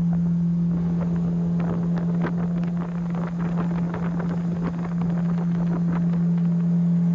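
Electric trolling motor running with a steady, even hum, over a scatter of light ticks.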